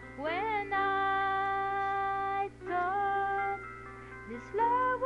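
A woman singing a slow ballad over a backing track, holding long notes: the first slides up into a sustained note about a third of a second in, followed by two more held notes.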